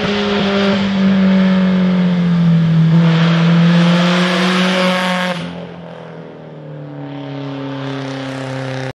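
Car engine and exhaust held at high revs, a loud steady note that slides a little lower in pitch. About five seconds in, the sound cuts abruptly to a quieter, lower steady engine note that grows slightly louder toward the end.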